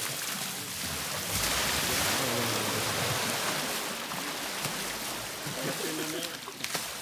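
Water splashing and sloshing in an overfilled plastic tub and pouring over its rim as a baby elephant rolls about in it, loudest a second or two in.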